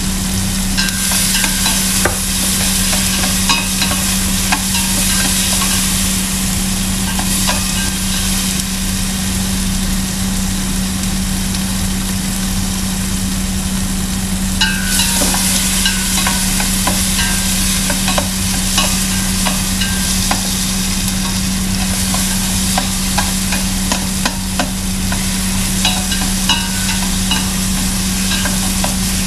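Tomato wedges frying in hot oil in a stainless steel pot: a steady sizzle with many small crackling pops, growing louder about halfway through, over a constant low hum.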